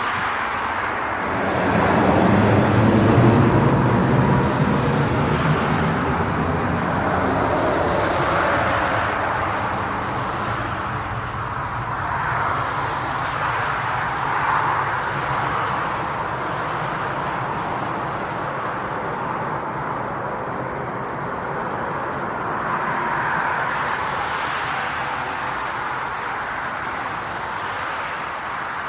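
Jet airliner engines running, loudest about two to four seconds in, then a steady noise that holds on without a clear rise or fall.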